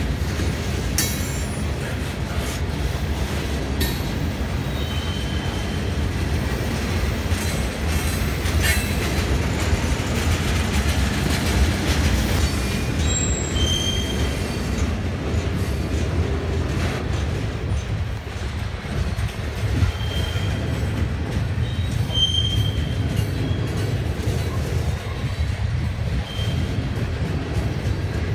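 A CSX freight train's hopper and gondola cars rolling slowly past, a steady low rumble of wheels on rail. Scattered metallic clanks and several brief high-pitched wheel squeals come through it.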